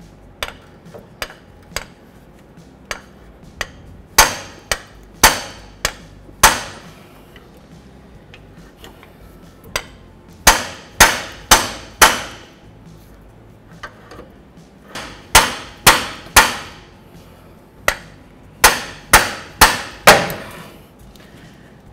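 Hammer blows on the steel driver of a freeze plug installer, driving a new freeze plug into the engine block: sharp metallic strikes with a short ring. A few light taps come first, then bunches of four or five hard blows with single light taps between, as the crooked plug is worked in from its upper side until it sits flush.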